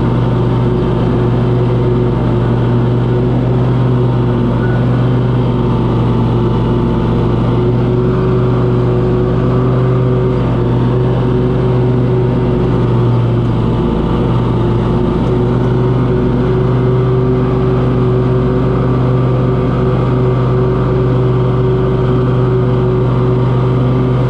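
Small gas engine of outdoor power equipment running steadily at a constant speed.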